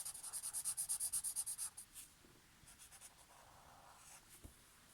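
Permanent marker scribbling on paper, filling in a shape with rapid back-and-forth strokes for about two seconds, then a few fainter strokes.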